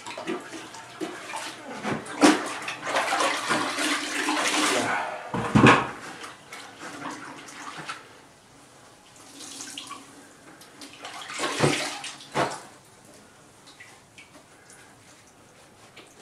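A grout sponge being rinsed out in water: splashing and sloshing, busiest in the first five seconds or so. After that it goes quieter, with two more sharp splashes about twelve seconds in.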